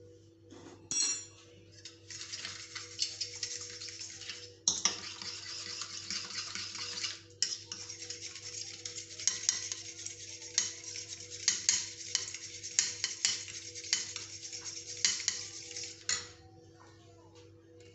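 Eggs being beaten briskly with a metal fork in a ceramic bowl, the tines rapidly clinking and scraping against the bowl. It starts about a second and a half in, pauses briefly near the middle and stops shortly before the end. A faint steady hum sits underneath.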